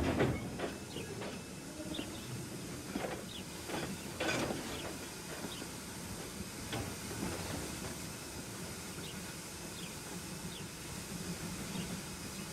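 Steam locomotive standing with a steady hiss of steam over a low hum, broken by irregular short clanks and ticks, two stronger ones about three and four seconds in.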